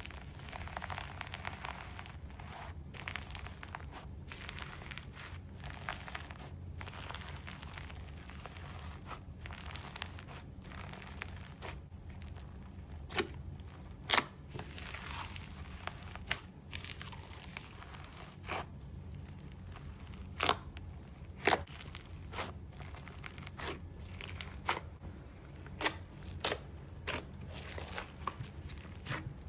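Crunchy slime being squeezed and stretched by hand, giving a dense crackle that gives way, about halfway through, to separate sharp pops and snaps that get louder and more frequent toward the end. A steady low hum runs underneath.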